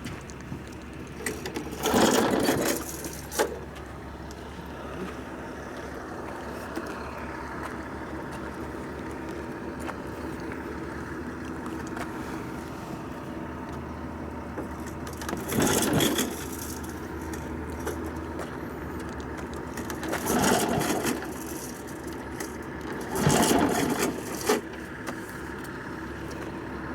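Small petrol engine of an 11 HP portable fill compressor running steadily, broken several times by louder noisy bursts about a second long.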